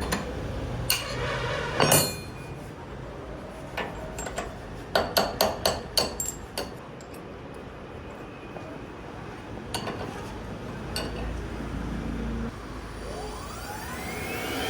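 Metallic clinks and knocks, scattered, with a run of about six quick ones around five seconds in. Near the end a CNC router spindle starts up with a rising whine.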